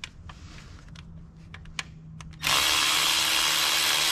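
A few light clicks of tool handling, then about two and a half seconds in a cordless driver starts and runs steadily, spinning out a loosened water pump bolt.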